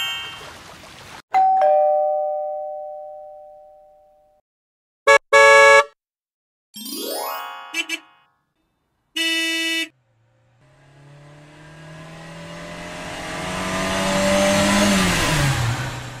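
A string of edited-in sound effects. A two-note chime rings near the start and fades over about three seconds. About five seconds in come two short electronic tones, then a quick rising glide and another short tone. Last, a whoosh swells for several seconds and drops in pitch near the end.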